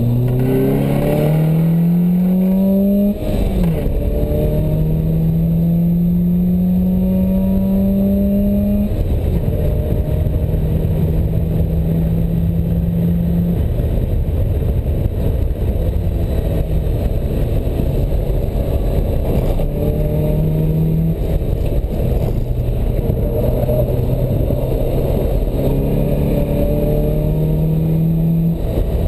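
Open-top sports car's engine heard from the cockpit at speed on a race track, revving up hard with a sharp drop in pitch about three seconds in like an upshift, climbing again, then settling to lower, changing engine notes with further bursts of acceleration near the end. Heavy wind and road noise rush through the open cabin throughout.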